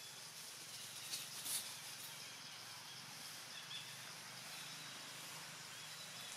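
Quiet outdoor ambience: a steady low background hum with faint bird chirps, and two soft clicks about a second and a half in.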